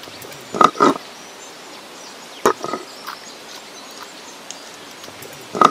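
Stone grinding roller knocking on a granite grinding slab: two sharp knocks close together about half a second in, then another about two and a half seconds in, over a faint steady hiss.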